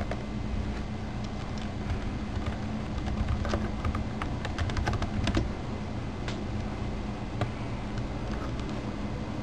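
Typing on a computer keyboard, with a quick run of keystrokes in the middle and scattered single clicks, over a steady low hum.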